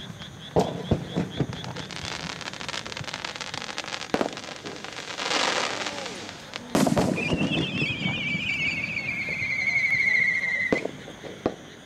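Aerial firework shells bursting: a quick run of sharp bangs, then crackling from the bursting stars and a louder boom about seven seconds in. After the boom a warbling whistle slides slowly down in pitch for about three seconds and cuts off with another bang near the end.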